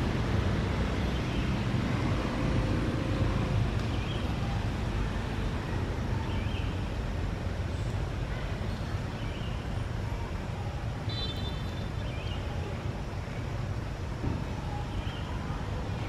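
Steady low rumbling outdoor background noise, with a few faint, brief high-pitched calls now and then.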